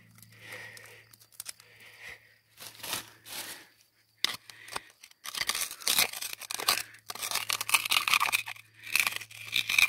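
A metal bar scraping, prying and chipping at crumbly quartz-vein rock, making gritty scraping and crunching strokes. The strokes are scattered at first and come almost without a break through the second half.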